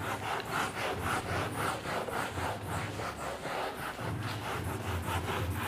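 Handheld whiteboard eraser wiping back and forth across a whiteboard, a steady run of quick rubbing strokes.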